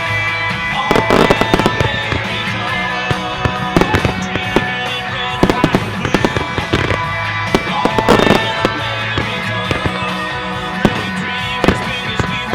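Consumer aerial fireworks bursting over guitar-driven music, with many sharp bangs and crackles, some in quick clusters, throughout.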